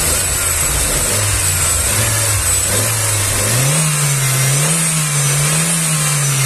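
Chevrolet Astra's four-cylinder engine being revved: it runs at a steady speed, then the revs rise about three and a half seconds in and hold with small ups and downs. It runs quiet and smooth, with the pinging it was brought in for judged cured by new fuel injectors.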